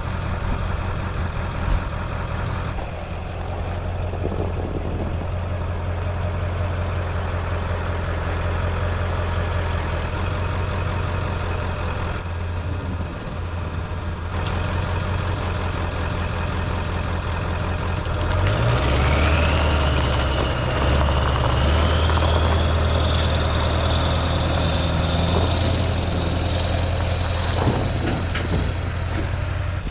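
Ford Power Stroke diesel pickup engine running with a steady low note. About 19 seconds in the engine note changes and a high whistle rises, then holds.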